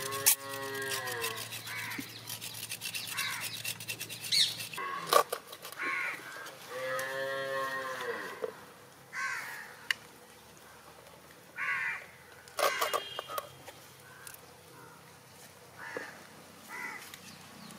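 Cattle mooing: two long, arched lowing calls, one at the very start and another around seven seconds in, with a few shorter calls between. A few sharp clicks sound around five seconds in and again near thirteen seconds.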